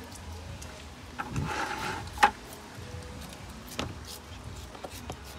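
Scattered knocks and taps of a knife and slabs of stingray meat being cut and handled on a hard table, with one sharp knock about two seconds in.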